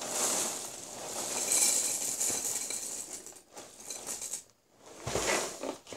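Golden Grahams cereal squares pouring out of the box's plastic liner into a ceramic bowl, a dry rattling hiss of pieces hitting the bowl. The pour breaks off about four and a half seconds in and comes again in a short burst near the end.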